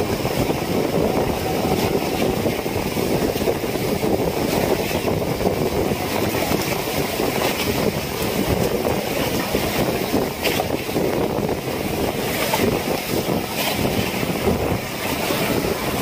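Steady wind buffeting the microphone and the sea washing against a small fishing boat in rough water, with a few faint knocks.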